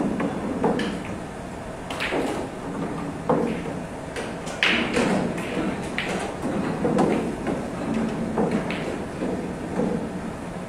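Pool hall room sound: indistinct background voices with occasional sharp knocks and taps.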